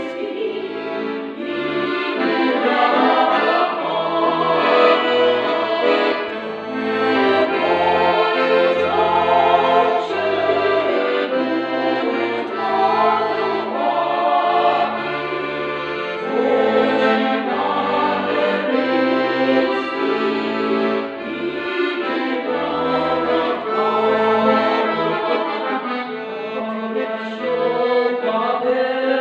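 Accordion playing a folk song, its bass notes changing in steps under the melody, while a mixed choir of men's and women's voices sings along.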